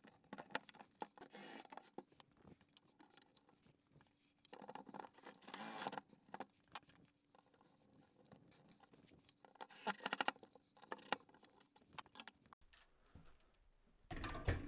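Handling noises of a wooden wall shelf being positioned and fastened: scattered light clicks and knocks, with short scraping and rustling bursts about one, five and ten seconds in, and a low thump near the end.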